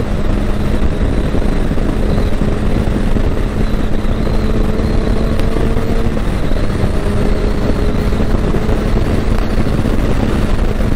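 Motorcycle engine running at a steady cruise, with heavy wind rush buffeting the microphone. The engine note drops slightly about six seconds in as the throttle eases.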